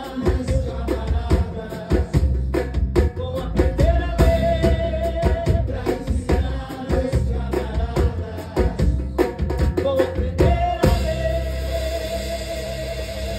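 Live samba band: a woman singing long held notes over a drum kit. The drumming is dense and steady until it drops away about eleven seconds in, leaving a sustained note.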